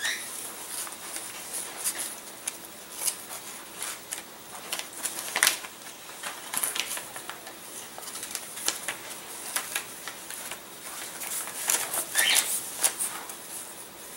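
Clear plastic bag rustling and crinkling as laser-cut balsa sheets are handled and slid into it, with irregular light crackles and clicks.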